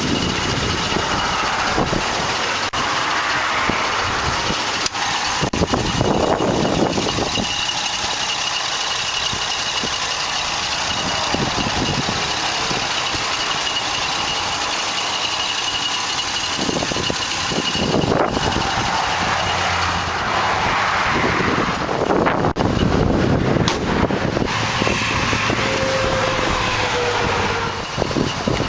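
Wind buffeting the microphone over a steady rumble of highway traffic, in uneven gusts.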